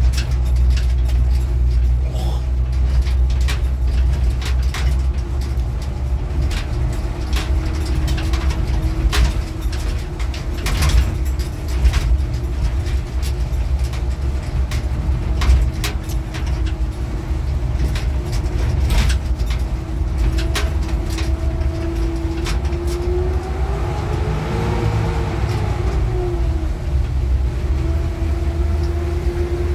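A motor vehicle running with a heavy low rumble and scattered rattling knocks; its engine note holds steady, then rises and falls back briefly near the end.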